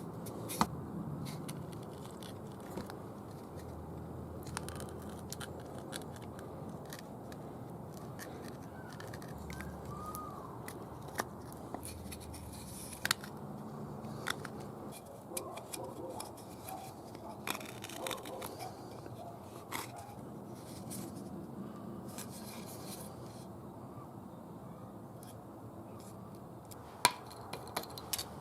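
Knife cutting a notch into a wooden hearthboard: irregular scrapes and sharp clicks of the blade against the wood, with a few louder snaps near the start and near the end.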